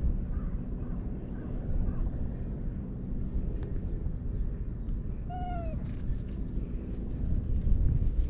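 An orange tabby cat gives one short meow a little past the middle, falling slightly in pitch, over a steady low background rumble.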